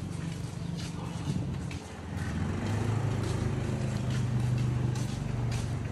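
A motor engine running steadily with a low hum, a little louder from about two seconds in, and a few light clicks in the first second or so.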